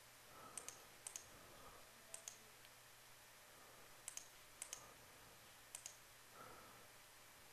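Faint computer mouse clicks, about six in all at uneven gaps, each a quick double tick of button press and release, against near silence.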